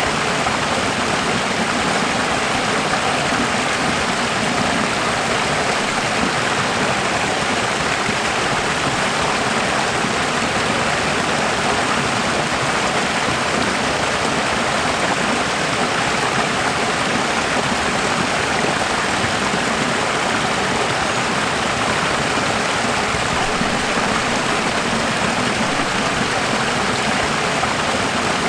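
Running water: a steady, even rush of flowing water with no breaks or changes.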